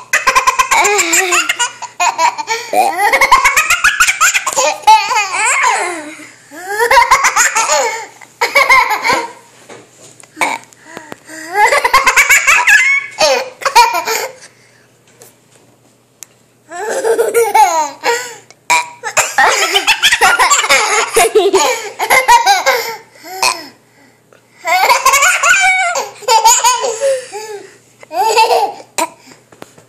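A young boy laughing hysterically in high-pitched fits, about five long bursts with gasping breaks between them and a longer pause around the middle.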